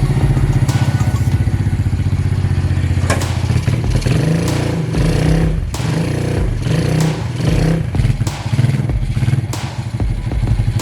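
Small engine running steadily with a rapid, even pulse, under occasional clattering knocks and thuds from the mini excavator at work.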